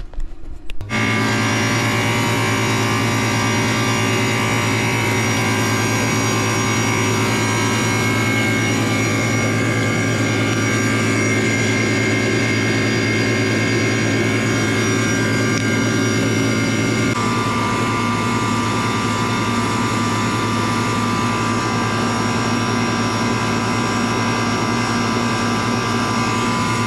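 A 1994 Goodman 5-ton heat pump's outdoor unit running: a steady compressor hum under the rush of the condenser fan, coming in abruptly about a second in, its tone shifting slightly about two-thirds of the way through. The compressor, condemned by another company, runs once its wires are hooked up.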